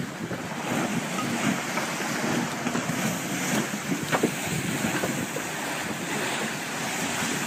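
Choppy sea water sloshing and splashing around a capsizing fishing boat as it goes under, with steady wind noise on the microphone.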